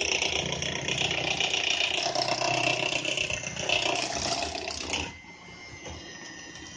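Electric hand mixer running, its beaters churning thick pound cake batter in a bowl with a steady whir; the sound drops noticeably quieter about five seconds in.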